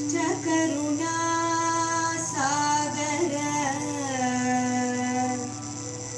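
Devotional bhajan singing: a voice holds long, gliding notes over steady, sustained accompaniment.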